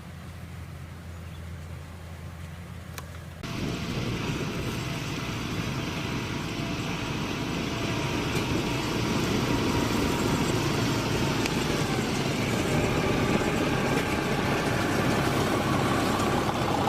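Kubota DC-105X combine harvester's diesel engine and threshing machinery running. A low steady hum at first, then about three and a half seconds in a much louder, dense mechanical din cuts in suddenly and carries on, growing slightly louder.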